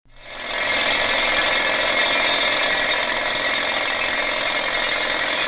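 A machine running steadily with a dense, even mechanical noise, fading in over about half a second.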